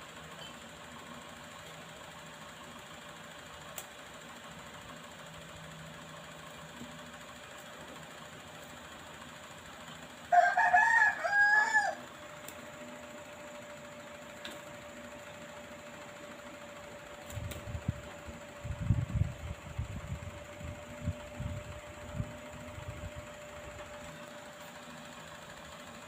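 A rooster crows once, loudly, about ten seconds in, a call under two seconds long. Later comes a stretch of low, irregular thumps.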